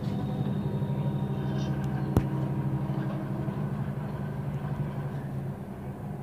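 Steady low mechanical hum and rumble, with a single sharp click about two seconds in.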